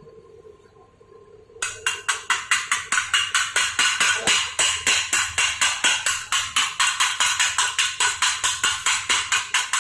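A short square steel piece knocked rapidly against a freshly welded steel block, about four to five sharp metal knocks a second, starting about one and a half seconds in.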